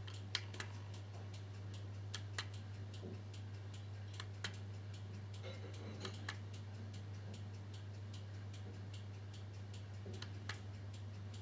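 A few louder plastic clicks of buttons pressed on a Voltcraft IPC-1L (La Crosse BC-700) battery charger. Under them runs a faint regular ticking of about three ticks a second and a low steady hum.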